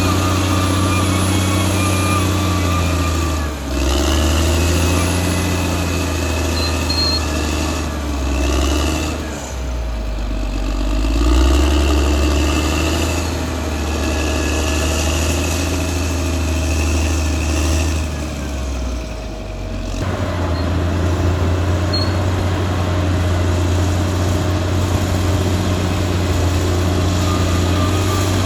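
Caterpillar D6R XL bulldozer's diesel engine running under varying load: its steady low note sags and recovers a few seconds in and again around the middle, then holds an even pitch from about two-thirds of the way through.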